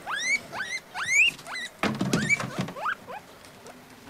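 Guinea pig wheeking: a string of short, rising squeals, about two a second, growing weaker toward the end. A brief clatter comes about two seconds in.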